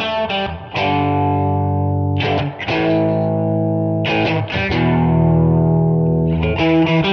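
Outro music: distorted electric guitar playing held chords, struck anew about every two seconds.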